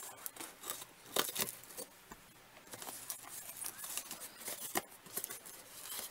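Scissors snipping through a cardboard shipping box, a string of short sharp cuts. From about three seconds in, the cardboard flaps are pulled open and handled with a steady scratchy rustle.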